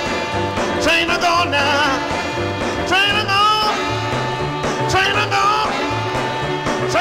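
Instrumental break of a 1961 rhythm and blues record played from a vinyl 45: a wailing blues harmonica plays bending phrases over a steady, repeating bass line and drums.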